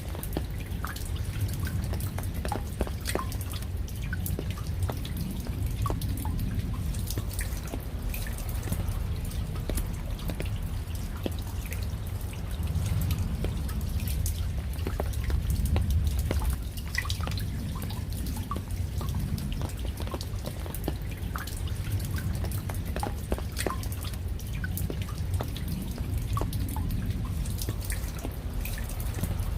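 Raindrops dripping and pattering in an irregular scatter of sharp drips, over a steady low rumble.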